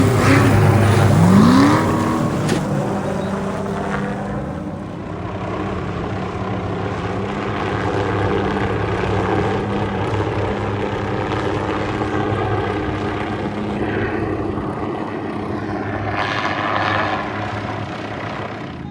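Off-road race vehicle engine revving, its pitch dipping and then climbing sharply in the first two seconds, then a steady engine drone with a brief surge of noise near the end.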